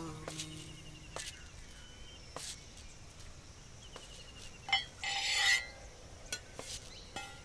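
Quiet outdoor ambience with faint bird chirps and scattered small clicks. About five seconds in comes a knock and a short scraping rub as an old door is handled. The last notes of background music fade out at the very start.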